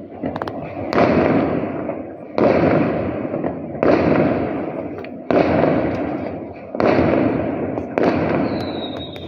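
Aerial fireworks bursting: six loud booms about a second and a half apart, each fading out over a second or so before the next. A thin high whistle sounds near the end.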